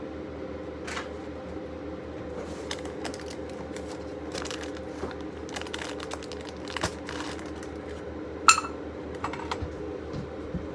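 Kitchen handling noises: light clicking and crinkling, then one loud ringing metallic clink about eight and a half seconds in, over a steady low hum.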